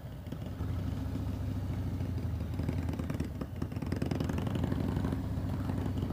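Harley-Davidson Road Glide V-twin with a TBR aftermarket exhaust, running steadily at low revs as the bike rolls slowly, heard from the rider's seat.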